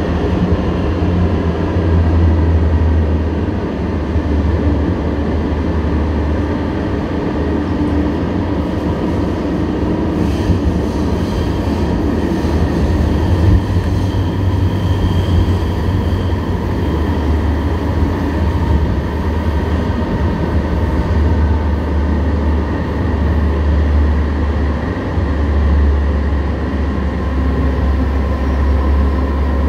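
Alstom Citadis light-rail train running at speed through a tunnel, heard from inside the car: a steady loud rumble with a strong low hum and faint whining tones above it.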